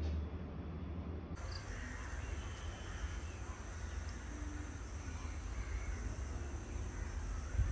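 A low hum for about the first second and a half gives way to outdoor ambience: scattered bird calls over a steady, high insect drone.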